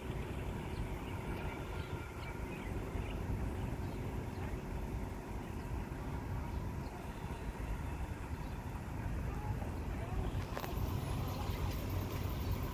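Steady low rumble and hum of a standing train's idling diesel engine. A single click about ten and a half seconds in, followed by a faint high hiss.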